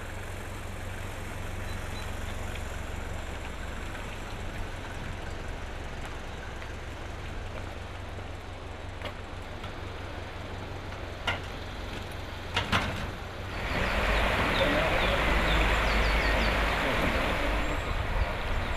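A vehicle engine running steadily with a low rumble, a couple of sharp clicks, then about two-thirds of the way through a louder steady rushing noise sets in over it.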